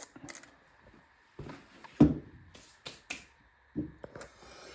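Handling noises: a string of light clicks and taps, with a louder thump about two seconds in and another near the end, like a coffee grinder and its parts being picked up and set down.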